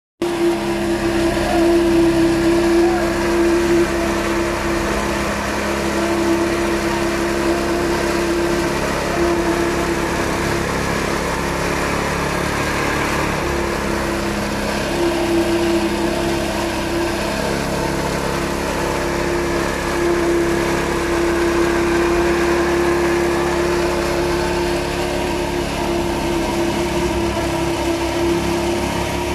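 Small petrol engine of a concrete vibrator running steadily, driving the flexible-shaft poker that compacts freshly poured concrete, with a strong steady hum.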